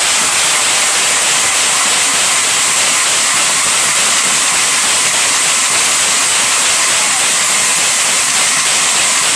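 Many large brass hand cymbals clashed together rapidly and without pause, making a loud, steady, shimmering wash.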